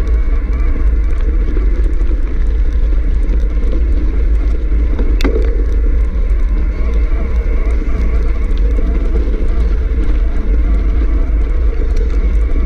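Steady rumble of wind buffeting an action camera's microphone, mixed with mountain bike tyres rolling over a gravel dirt trail. A single sharp click comes about five seconds in.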